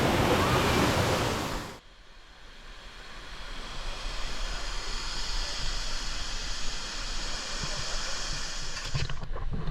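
Waterfall roaring as a loud, even rush of water, which cuts off abruptly a little under two seconds in. A fainter steady hiss of rushing water follows and slowly grows louder.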